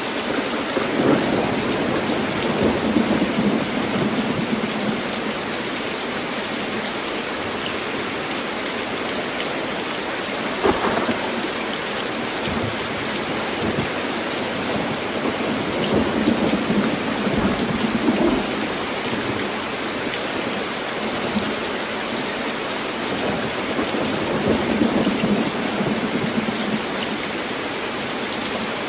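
Heavy rain falling steadily on a tin roof, with thunder: low rolling rumbles swell three times, near the start, about halfway and near the end, and a sharper crack of thunder comes about ten seconds in.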